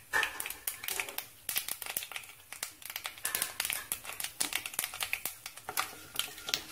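Mustard seeds, urad dal and cumin spluttering in hot oil in a kadai: a dense run of irregular sharp pops and crackles. This is the tempering (thalippu) at full heat.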